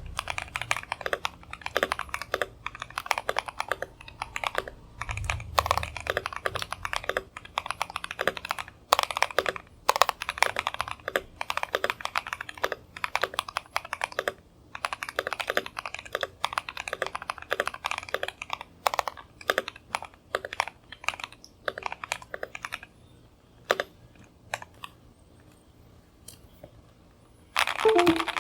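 Keychron Q1 mechanical keyboard typed on in fast bursts of keystrokes. The typing thins to a few scattered key presses, then a quick flurry near the end.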